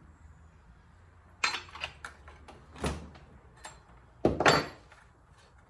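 Handling clicks and knocks of chainsaw parts, a handful of separate sharp knocks, the loudest a little past the middle, as the saw is opened up to get at the spark plug.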